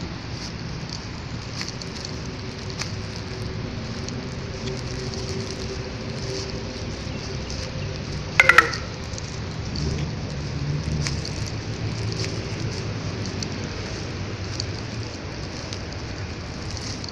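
Steady outdoor noise with a low, shifting motor-traffic hum and a crackly rustle. About halfway through comes one short, loud squeal that falls in pitch.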